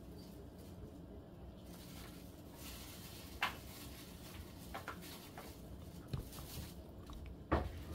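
Cat chewing dried anchovies out of a ceramic bowl: a few scattered crunches and clicks, the loudest near the end.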